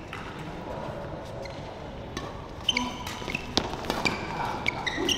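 Badminton play in an indoor hall: court shoes squeaking briefly on the floor and sharp racket hits on the shuttlecock, busier in the second half, over steady hall noise.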